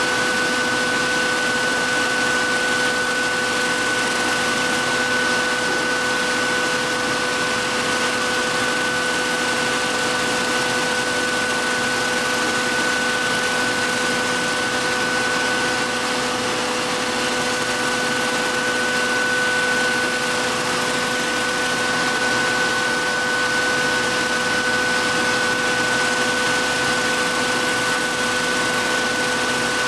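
Electric belt knife sharpener running steadily: a constant motor hum with a steady higher tone over the hiss of the abrasive belt.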